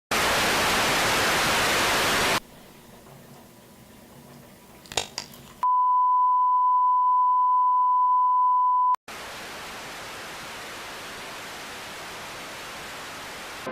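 Loud static hiss that cuts off after about two seconds, a quiet stretch with a couple of faint clicks, then a steady single-pitched beep tone held for about three seconds, followed by softer static hiss.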